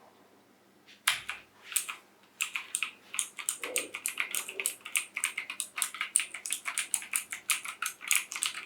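Typing on a PC Power K98 mechanical keyboard with clicky blue switches: rapid, loud, sharp key clicks, starting about a second in, with a short pause and then fast continuous typing.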